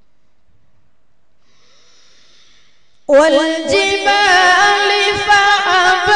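After about three seconds of quiet, a boy's voice starts a melodic Quran recitation (tilawat): one long phrase with a wavering pitch.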